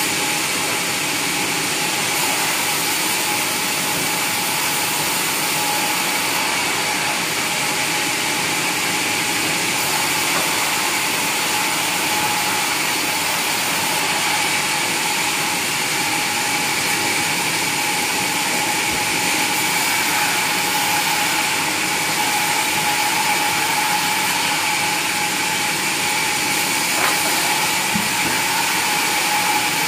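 Sawmill saw and its drive motor running steadily, a constant mechanical noise with a steady whine over it.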